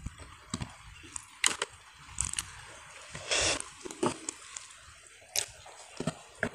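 Eating by hand: small clicks and crackles of fingers working rice and greens on a plate, mixed with chewing, and one longer crunchy rustle about three seconds in.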